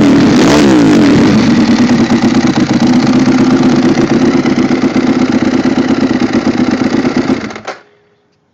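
Ducati 1198 L-twin engine with an aftermarket exhaust, blipped once about half a second in, then idling with a lumpy beat. The engine is shut off suddenly about a second before the end.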